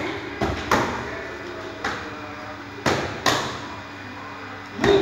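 Strikes from boxing gloves landing on a coach's hand-held striking pads: about six sharp smacks, two of them in quick pairs, the loudest near the end.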